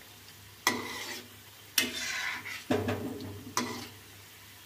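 Steel slotted spatula scraping against the side of an iron kadhai four times, about once a second, as it turns gujiya frying in oil. Faint sizzling of the oil in between.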